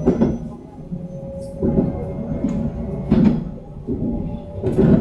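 Passengers talking inside a Taiwan Railways EMU700 commuter train carriage, their voices coming and going over the steady low rumble of the train.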